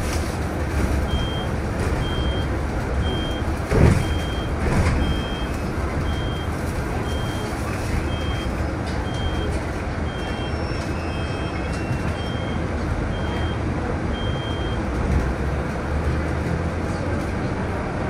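A truck's reversing alarm beeping about once a second for some thirteen seconds, over the steady low rumble of its engine and street traffic. A brief loud thump about four seconds in.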